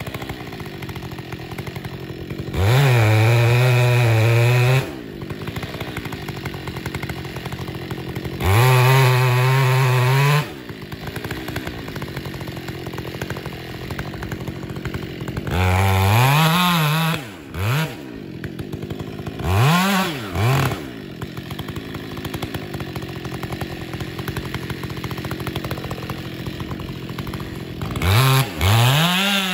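Two-stroke chainsaw idling, opened up to full throttle for two bursts of about two seconds each in the first ten seconds, then several shorter rev-ups that rise and fall back to idle, as it cuts into the base of a tree.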